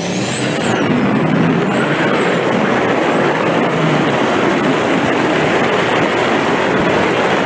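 Steady rush of wind and road noise from an electric Tesla running flat out down a drag strip, the wind blowing hard across the microphone. A faint high whine glides up and down in the first second.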